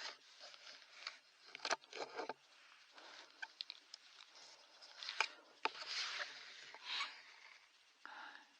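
Irregular rustling and crunching close by, with a few sharp cracks: once about a second and a half in and again about five seconds in.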